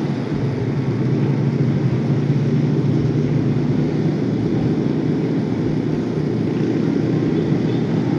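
Motorcycle engine running steadily at cruising speed, with road and wind noise. A constant low drone with no gear changes or revving.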